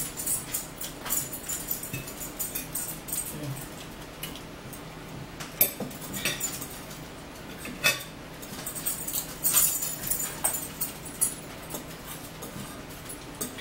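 Mealtime table sounds: forks clicking and scraping on plates, with chewing and mouth noises and scattered sharp clinks.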